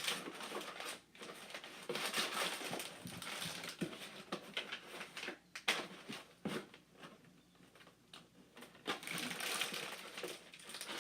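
Close handling noise: irregular rustling and crinkling with small clicks and knocks, as of toys and packaging being handled near the microphone.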